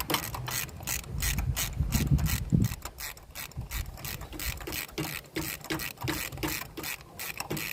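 Ratchet wrench clicking in rapid runs as it backs a spark plug out with a 5/8 socket. There is some dull low knocking in the first couple of seconds.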